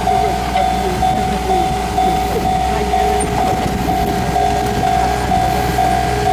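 Japanese level-crossing warning bell ringing steadily, a repeating electronic ding about twice a second, with a low rumble underneath.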